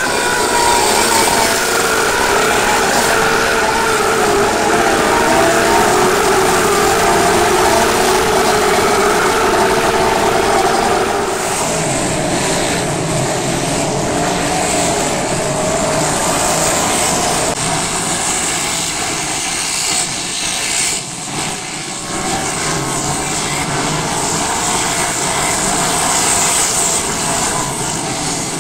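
Several dirt track race cars running laps at speed, their engines rising and falling in pitch as they go past; the sound changes about twelve seconds in.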